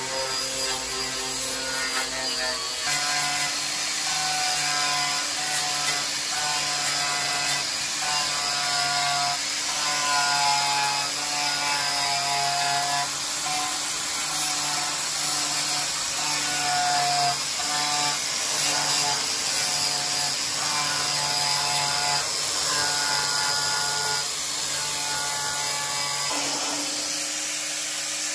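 An angle grinder stripping paint and rust from a steel Land Rover Series 3 bulkhead, a steady grinding hiss, with background music over it.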